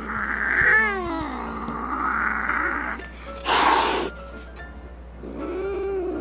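Two kittens fighting, caterwauling and hissing: a drawn-out yowl that falls in pitch about a second in, a loud half-second hiss about three and a half seconds in, and a yowl that rises and falls near the end.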